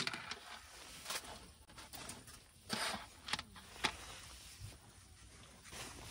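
A flexible mat being handled and laid flat on a wooden camp table: a few light taps and clicks with a short rustle partway through.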